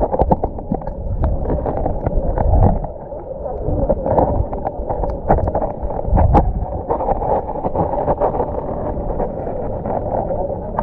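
Muffled water sloshing and splashing around a camera's waterproof housing as a snorkeler swims at the surface, with scattered knocks and a louder thump about six seconds in.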